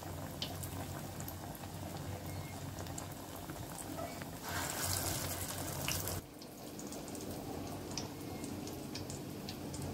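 Banana-flower vadais deep-frying in hot sesame oil in an iron kadai: steady sizzling with scattered crackles. It grows louder for a couple of seconds from about four and a half seconds in, as more batter goes into the oil, then cuts off suddenly about six seconds in, leaving a quieter hiss with a faint steady hum.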